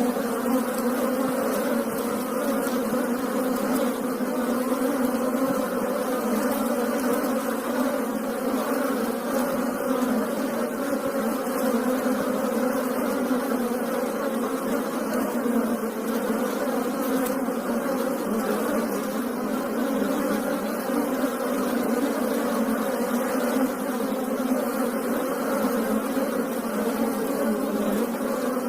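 Many Asian honeybees (Apis cerana indica) buzzing together in a steady, dense hum that keeps an even pitch and level throughout.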